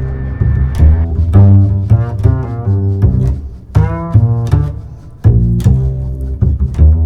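Background music of low string instruments, with a deep bass line under shifting pitched notes and sharp percussive taps.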